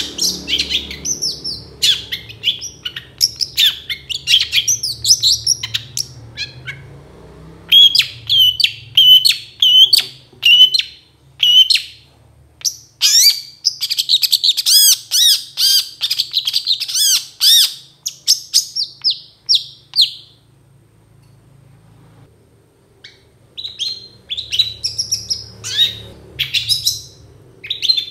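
Long-tailed shrike singing loudly: a varied run of harsh chattering and sharp whistled notes. In the middle it breaks into a very fast string of repeated notes, then falls silent for a few seconds before singing again.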